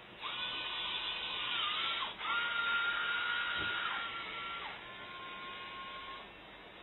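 Small electric servo motors inside the modular robot's joint modules whining as the modules turn. There are three runs of about one and a half to two seconds each, each a steady high whine that dips in pitch as it starts and stops.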